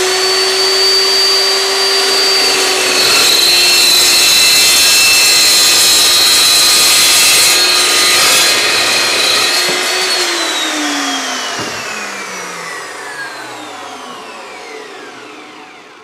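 Evolution S380CPS 15-inch dry-cut metal chop saw, its carbide-tipped blade spinning at speed with a high whine. About three seconds in the pitch drops slightly as the blade bites into a thin-walled pipe, and it cuts through over several seconds. Near ten seconds the load comes off and the motor winds down with a falling whine.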